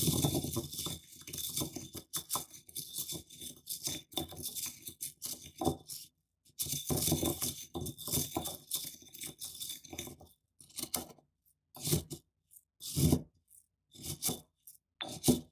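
Corn kernels being crushed and ground in a stone bowl: a dense run of crunching and scraping, a short break about six seconds in, a second run, then separate single crunches in the last few seconds.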